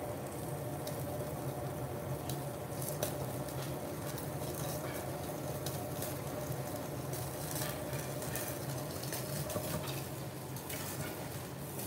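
A slice of marbled wagyu sizzling on a yakiniku grill's wire mesh, with scattered pops and crackles as flames flare up around it. A steady low hum runs underneath.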